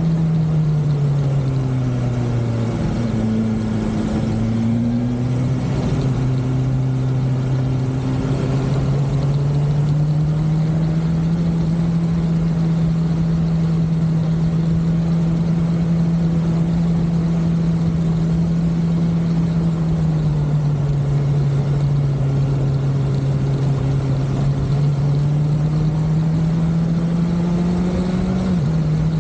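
BMW S1000XR's inline-four engine running on the road. Its note drops as the throttle eases about a second in, climbs back a few seconds later and holds steady. It dips again around two-thirds of the way through and rises near the end.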